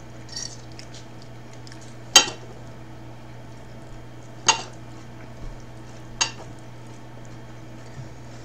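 Metal fork clinking against a ceramic dinner plate while eating: three sharp clinks about two seconds apart, the first the loudest.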